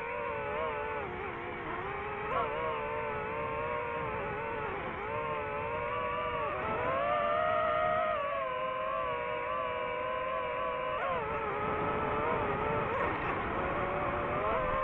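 DJI FPV drone's motors and propellers whining in flight, the pitch rising and falling as the throttle changes.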